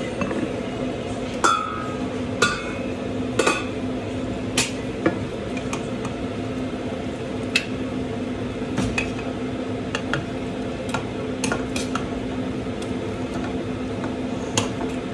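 Clinks and knocks of a ceramic plate on a stone countertop and of food being laid onto it: about a dozen irregular taps, the loudest and ringing ones in the first few seconds. A steady low hum runs underneath.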